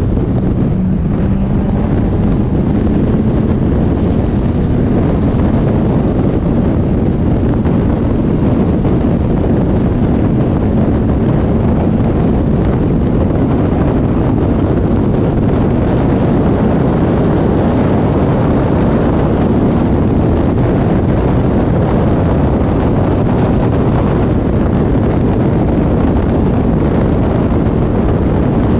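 Caterham 420R's 2.0-litre Ford Duratec four-cylinder engine running hard at racing speed, heard through wind rush on an open-cockpit onboard microphone. The engine note climbs a little over the first few seconds, then holds steady.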